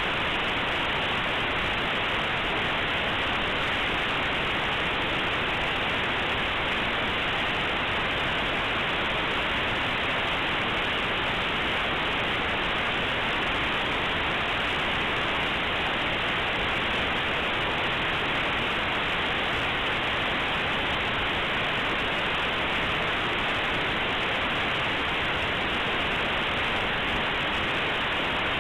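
A compressed Linux kernel image played as raw audio through aplay: a steady, even static hiss, like white noise, with no tone, rhythm or change, and nothing in it above about 4 kHz.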